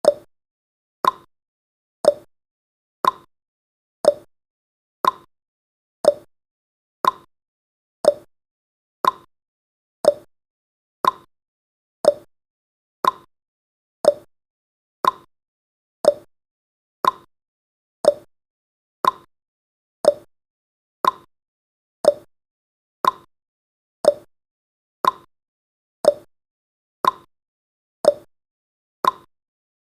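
Clock ticking sound effect of a countdown timer: one short tick every second, alternating between a lower and a higher tick, tick-tock fashion.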